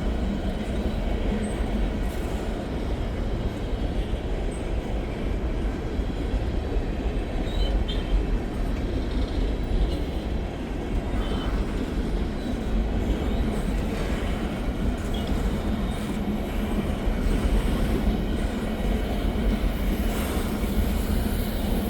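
A long freight train of trash cars rolling steadily past, steel wheels on rail making a continuous rumble, with a few faint brief high squeaks.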